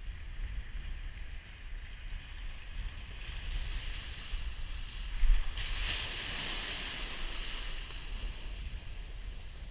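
Surf washing up the beach, a hiss that swells, breaks sharply about halfway through and slowly fades, over a low rumble of wind on the microphone.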